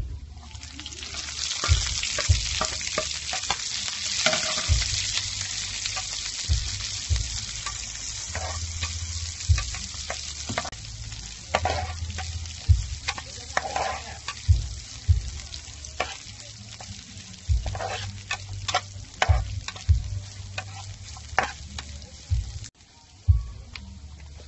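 Shredded vegetables hitting hot oil in a frying pan and sizzling loudly, the hiss easing off after about ten seconds. A metal ladle stirs them, knocking and scraping against the pan over and over.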